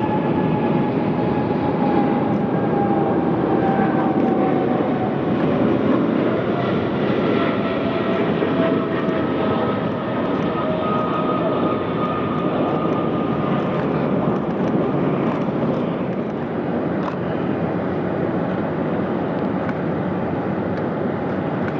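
Boeing 777-200ER jet engines running during pushback: a steady loud rumble with whining tones that slowly fall in pitch.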